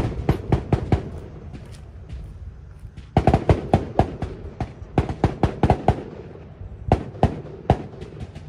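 Rapid strings of gunshots from other shooters at a shooting range, several shots a second: a burst at the start, a longer string in the middle and a few more shots near the end.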